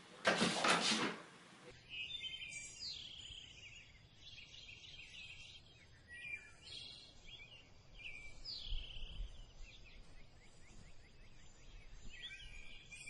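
A loud burst of noise for about a second and a half at the start, then birds chirping and singing in short repeated phrases of falling notes.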